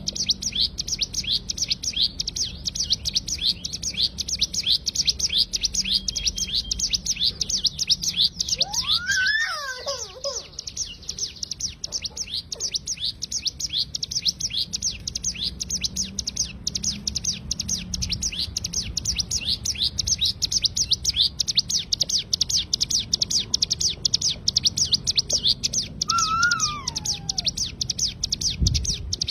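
A cigun bird calling in a continuous rapid-fire string of short, high, down-slurred chirps, several a second: the 'ngebren' machine-gun-style call. Twice a lower, slurred whistled phrase falling in pitch breaks in, about nine seconds in and again near the end.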